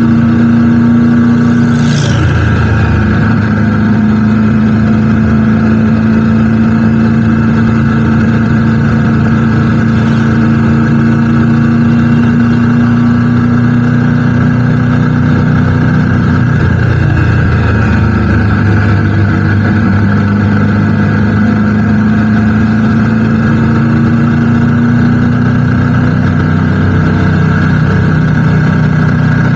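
Motorcycle engine running steadily under way, its note dropping and settling about two seconds in, with a brief high falling sweep at that moment, then holding a steady pitch.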